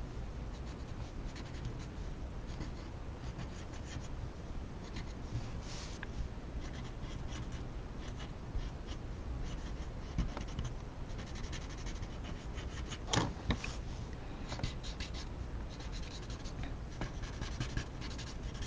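Blending stump rubbing graphite shading on a paper tile to soften it: a run of short, irregular scratchy strokes, with one louder scrape about two-thirds of the way through.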